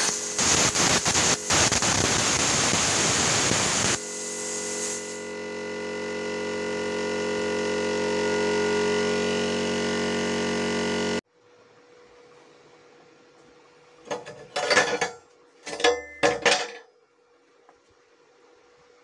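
Handheld plasma cutter cutting through a steel circular saw blade: a loud hiss with crackling stutters that stops abruptly about four seconds in, followed by a steadier hiss with a hum that ends suddenly. Near the end, a few sharp knocks.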